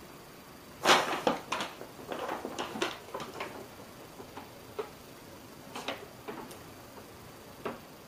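A quick run of sharp knocks and clicks, the loudest about a second in, followed by a few scattered single clicks.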